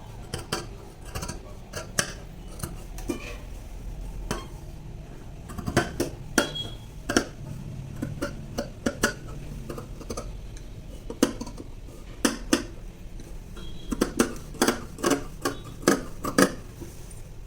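Tailor's scissors cutting blouse fabric: a run of irregular sharp metallic snips, coming in a quick cluster near the end.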